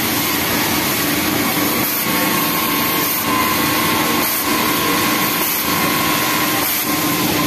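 Industrial overlock sewing machine running as a knit waistband is stitched, within the steady machine noise of a garment-factory sewing floor.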